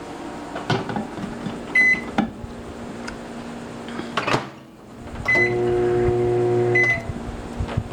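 Microwave oven being loaded and set: a few clicks and knocks of the door, short keypad beeps, then the oven hums steadily for about a second and a half, ending with another beep.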